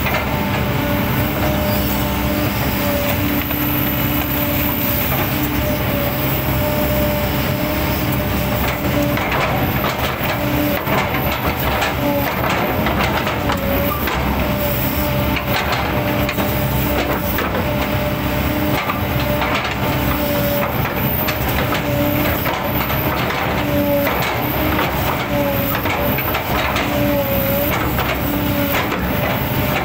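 Large hydraulic excavator's diesel engine running under load, with a hydraulic whine that dips and rises as the boom works. Its bucket chops and crushes an oil palm trunk, giving repeated cracks and knocks of splitting fibrous wood.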